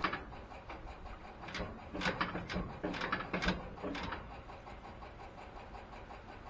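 A cluster of light clicks and clunks from the cab of a 1950 Ford F1 pickup, about eight of them between roughly one and a half and four seconds in, as the gas pedal is pumped to ready the cold 226 flathead six for starting.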